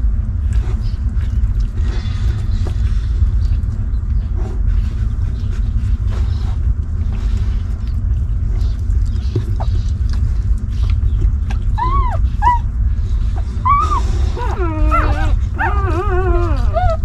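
Newborn puppies whimpering and squealing in short high cries, a few about two-thirds of the way in and a cluster near the end, while they nurse. A steady low rumble runs underneath.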